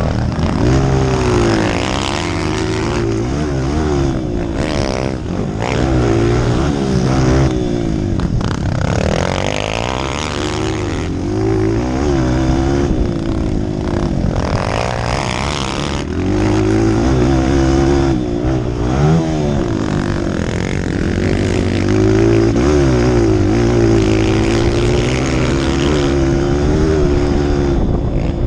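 Dirt bike's four-stroke single-cylinder engine, heard from on board while ridden hard around a motocross track. The engine note repeatedly climbs in pitch under throttle, then drops as the rider shifts or backs off.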